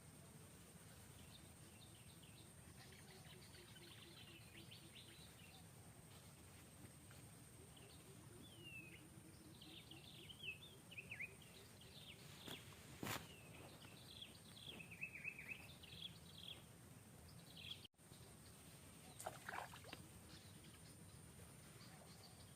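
Near silence with faint, scattered high-pitched animal chirps and squeaks in short clusters, a steady thin high whine underneath, and a single sharp click about halfway through.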